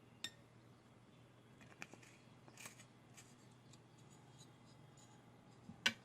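Spoon clicking and scraping against a mixing bowl while olive oil goes into the flour and ginger: a few faint clicks, a sharp one just after the start and another near the end, with light scraping between.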